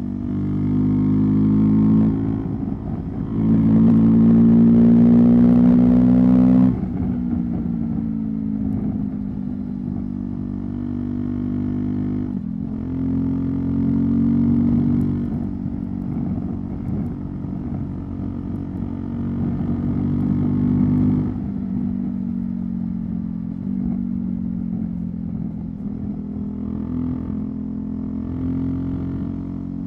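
Husqvarna Svartpilen 401's single-cylinder engine through a LeoVince LV-10 exhaust on the move. The engine climbs in pitch under throttle and then drops suddenly about a quarter of the way in, then runs steadier with two more abrupt drops in pitch, near the middle and about two-thirds through.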